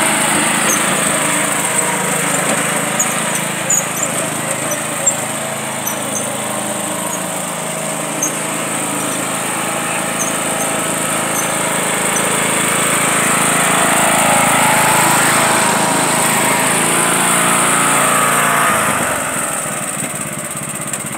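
John Deere riding lawn mower engine running under load as it tows a person on a sled. The pitch rises and falls with throttle, and the engine eases off about nineteen seconds in.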